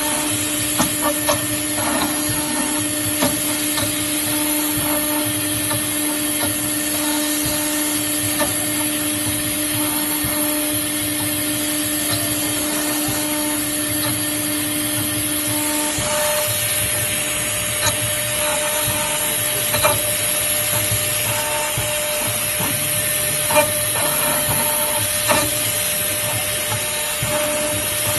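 CNC router spindle running with a fine end mill engraving a clamped metal plate: a steady machine whine over a constant hiss, with scattered ticks of the cutter and chips. A lower steady hum drops out about halfway through.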